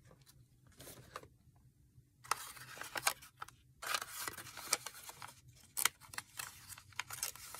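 Hands handling a roll of washi tape and its packaging: irregular small clicks and crinkly rustles, mostly from about two seconds in.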